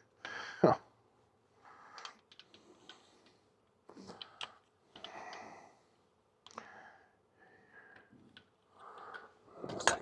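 Rummaging through a canvas tool bag: fabric rustling and hand tools clicking and clinking against each other in scattered short bursts, with one louder knock just under a second in.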